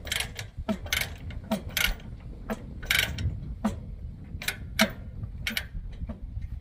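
Ratchet chain binder being cranked to tighten a tie-down chain, its pawl clicking in an uneven run of sharp clicks, about two a second.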